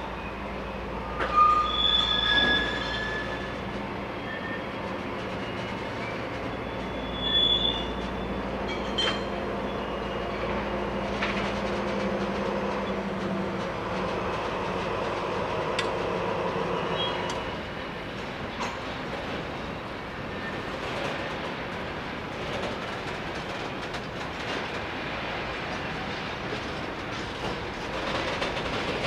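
Freight wagons rolling off the hump through beam rail retarders, which grip the wheels and squeal in short high-pitched bursts, loudest about one to three seconds in and again around seven seconds. Scattered metallic clicks and clanks of wagons run through it over a steady low hum.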